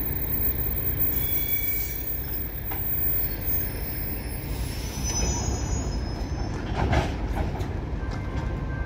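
Passenger coaches rolling slowly along the platform as the train brakes to a stop, with a steady low rumble and wheels and brakes squealing in thin high tones around the middle. A short cluster of clanks and knocks about seven seconds in is the loudest moment, as the train comes to a halt.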